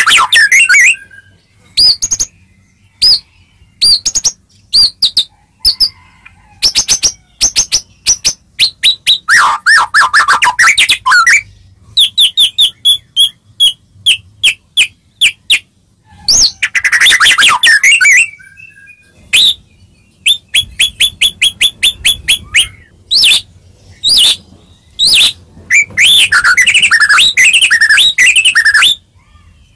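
White-rumped shama (murai batu) singing loudly: phrases of fast repeated whistled notes alternate with dense, twisting warbled runs, with short pauses between them.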